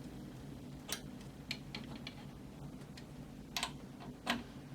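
Light, sharp metal clicks and taps, about half a dozen at uneven spacing, while a nut on a 3D printer's frame is tightened to take the slop out of it. The two loudest clicks come near the end.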